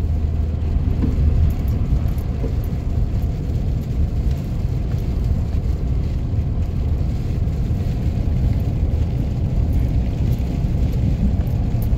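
Steady low road rumble heard inside a moving car, its tyres running over a snow-covered highway.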